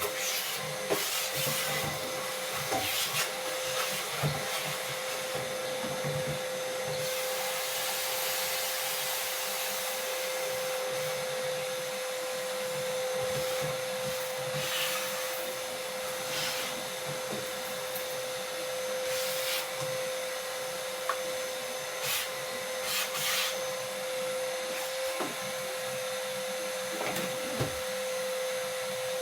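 A vacuum cleaner running steadily with a constant whine over a rush of air, with several brief surges of louder hiss.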